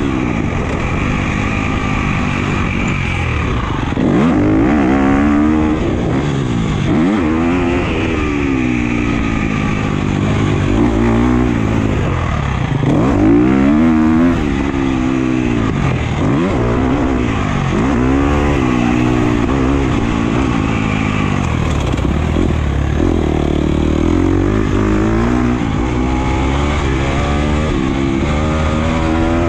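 Husqvarna FC250's 250 cc four-stroke single-cylinder engine being ridden hard on a motocross track, its pitch climbing and dropping again and again as the throttle is opened and shut through the turns and straights.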